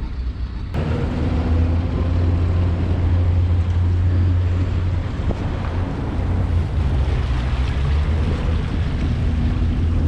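Honda outboard motor running steadily under way, with wind noise on the microphone.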